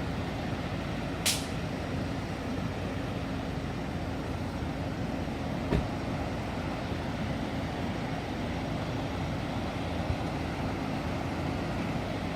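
Steady roar of a large waterfall, an even rushing noise. A brief high hiss about a second in and a sharp click about halfway through.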